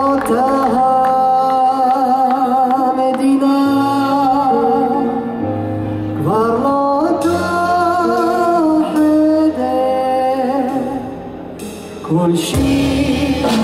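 Live band playing a slow song while a male singer holds long, wavering notes over bass. The music drops a little softer shortly before the end, then drums and cymbals come in.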